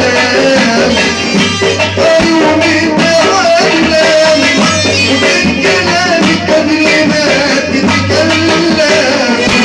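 Tunisian popular song: a wavering melody over a steady, busy percussion beat.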